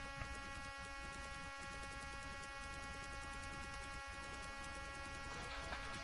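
Low, steady electrical hum with a buzzy edge, the background noise of the recording setup, unchanging throughout.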